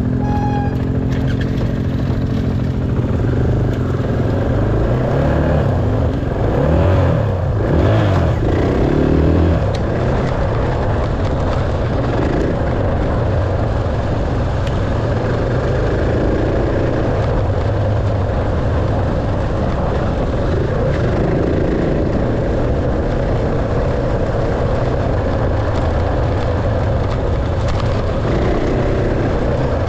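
Dirt bike engine running under way, revving up and easing off several times in the first ten seconds, then running at a steadier pitch with smaller rises and falls.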